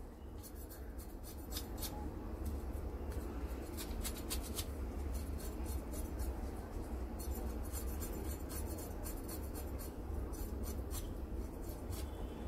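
Kitchen knife scraping scales off the skin of a black cod steak on a wooden cutting board, in runs of quick, scratchy strokes.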